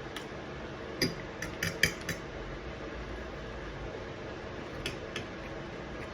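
Cutlery clinking against a plate while eating: a quick run of sharp clicks about a second in and two more near the end, over a steady background hum.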